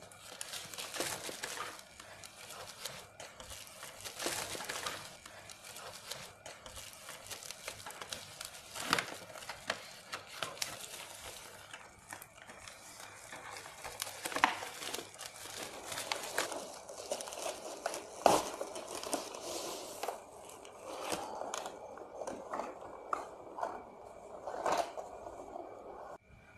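Plastic courier mailer bag crinkling and rustling as it is handled and opened by hand, with frequent sharp crackles; in the last few seconds the handling becomes softer.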